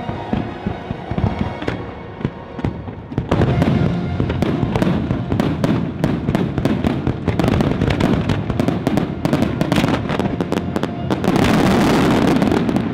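Barrage of aerial fireworks shells launching and bursting in rapid succession. It thickens about three seconds in into a dense run of bangs and crackles, and near the end becomes an almost continuous volley, with show music underneath at first.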